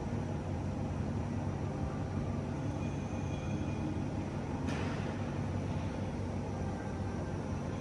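Steady low background rumble with a single sharp click just under five seconds in.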